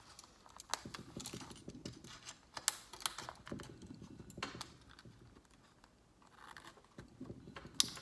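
Small metal retaining clips on the back of a metal picture frame being swivelled and pressed down over the hardboard backing: irregular sharp clicks, with fingers scraping and rubbing on the board between them.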